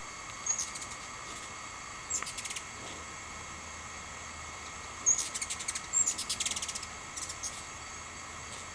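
Hummingbirds giving sharp, high chips and rapid chattering trills in several short bursts, the busiest run near the middle: the squeaky chase calls of hummingbirds dueling over a feeder. A steady high drone runs underneath.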